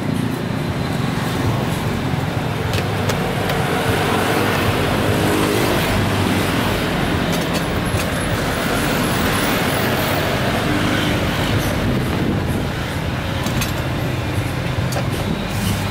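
Street traffic: a steady noise of motor vehicles running, with a low engine hum throughout and a few faint clicks.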